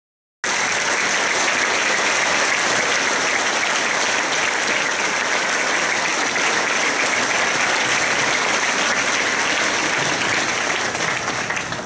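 Audience applauding: many people clapping at once, loud and dense. It starts abruptly about half a second in and thins out near the end.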